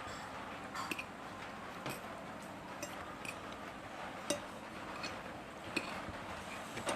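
Scattered light clinks and taps of tableware, about six spread over several seconds, the sharpest about four seconds in, over a steady background hiss.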